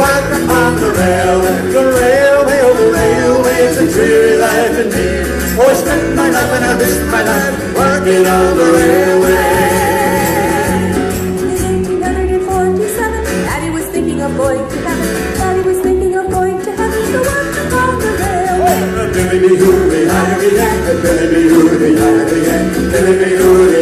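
Live folk band playing an Irish-American folk song: several voices singing together over strummed acoustic guitars and bass.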